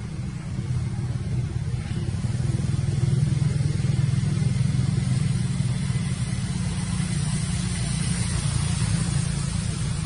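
Low, steady rumble of a motor vehicle's engine running, growing louder about two seconds in and then holding.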